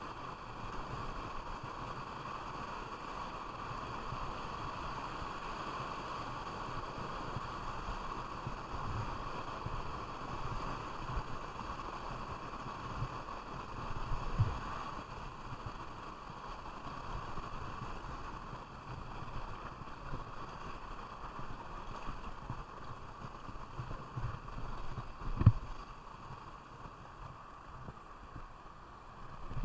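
Steady rush of river water around a whitewater kayak, with a few dull knocks, the loudest about 25 seconds in.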